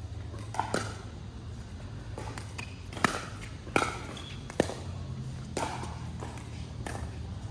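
Pickleball rally: paddles striking a hollow plastic pickleball, with short, sharp pops at irregular intervals about a second apart, some of them ball bounces on the court.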